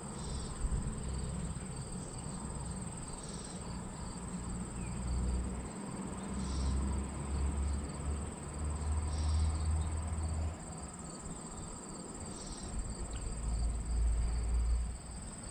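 Steady high-pitched trill of crickets, with a second, shorter insect call repeating about every three seconds. Low rumble of wind on the microphone comes and goes beneath it.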